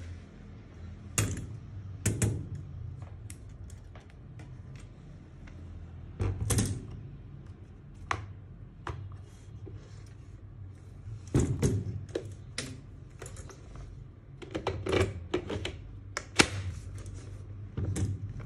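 Irregular clicks, taps and knocks of tools and hedge-trimmer parts being handled during disassembly, some coming in quick clusters, over a steady low hum.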